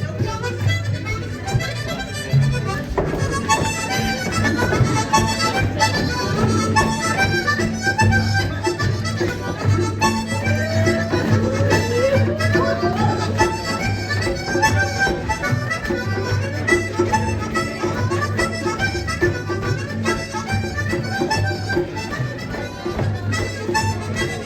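Folk music played on a free-reed instrument: a quick melody over held low bass notes.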